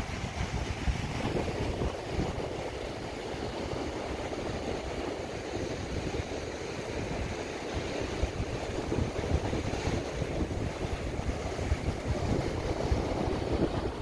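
Sea waves washing and breaking over rocks along the shore, a continuous rushing surf, with wind buffeting the microphone.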